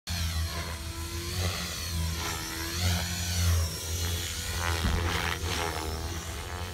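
Radio-controlled helicopter flying aerobatics, its rotor and motor whine rising and falling in pitch as it swoops and flips. A stronger sweep comes about five seconds in.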